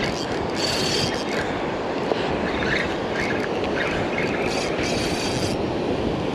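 Spinning reel being cranked to bring in a fish after a strike, its gears whirring and clicking, over the steady wash of breaking surf and wind on the microphone.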